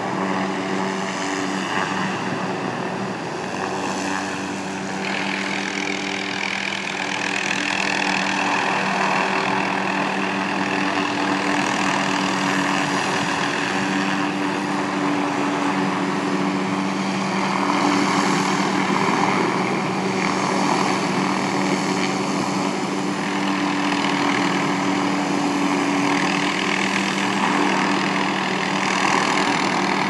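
Helicopter with a tree-trimming saw boom slung beneath it, hovering and moving slowly: a steady rotor and engine drone with a few steady hum tones, growing a little louder about eight seconds in.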